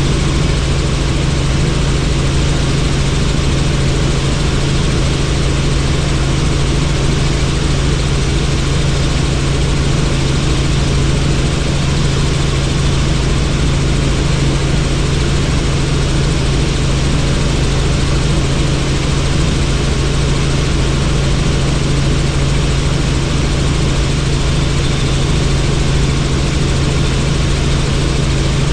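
Helicopter in flight: steady loud rotor and engine noise with a constant low hum, unchanging throughout.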